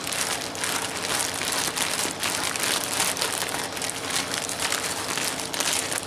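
Ziploc plastic bag of clothes and soapy water being squeezed and kneaded by hand: continuous, irregular crinkling of the plastic with the wash water sloshing inside.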